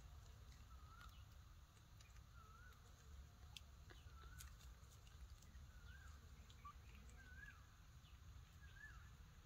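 Faint, short chirping calls from an animal, repeating roughly once a second, with a few light clicks over a low rumble.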